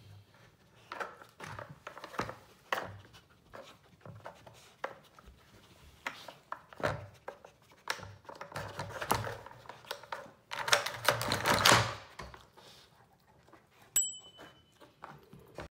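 A dog pawing and nosing a plastic puzzle toy's sliding pieces and pegs against a wooden floor: irregular clicks, knocks and clatters, busiest and loudest about two thirds through. A short high ping comes near the end.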